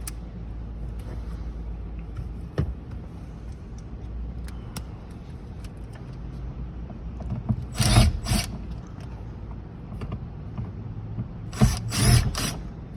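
Cordless driver with a Torx bit backing out the two sun visor screws in short bursts, two groups a few seconds apart, over a low steady hum.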